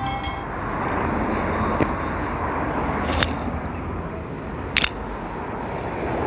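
Steady outdoor road-traffic noise, with two short sharp clicks about three and five seconds in.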